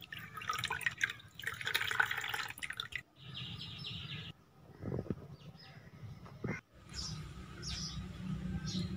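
Mulberry juice dripping and trickling in short stretches. Near the end, short high chirps repeat about twice a second over a low hum.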